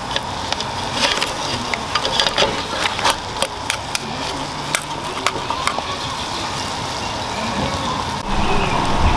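Hard lobster shells clicking and knocking against a metal stockpot and against each other as live lobsters are lowered onto the vegetables, over a steady hiss. A low rumble sets in near the end.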